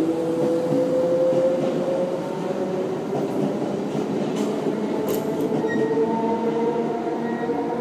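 Z6400 suburban electric train running, with a steady rumble and the whine of its electric traction motors rising slowly in pitch as it gathers speed. A few sharp clicks come about halfway through.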